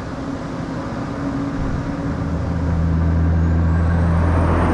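A motor vehicle's engine running steadily, growing louder about halfway through.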